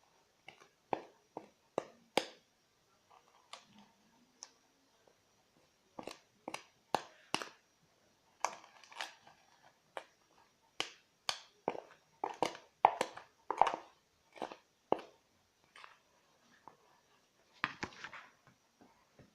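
A spoon knocking and scraping against a glass and bowl while thick cake batter is spooned across. The knocks are sharp and irregular, some in quick runs, with a brief scrape near the end.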